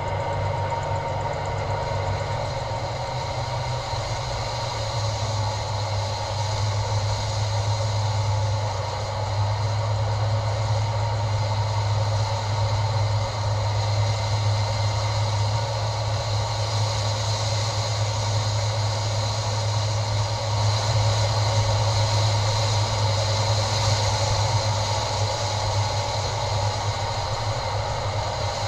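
A truck driving through town, heard through an action camera mounted on its hood: a steady low engine drone under a broad rushing noise, swelling a little about a third of the way in and again later on.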